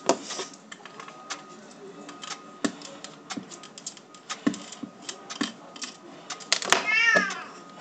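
Irregular small clicks and taps of a pistol's parts and a small screwdriver being handled as the gun is taken apart. Near the end comes a short call that falls in pitch.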